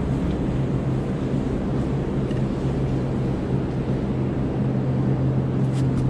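Steady low hum and background noise of an underground metro station concourse, with a couple of faint clicks near the end.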